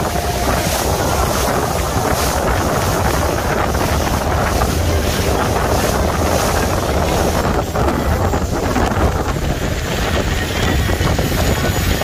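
Speedboat running fast over open water: a steady rush of wind and churning wake over the engine's low rumble, with wind buffeting the microphone.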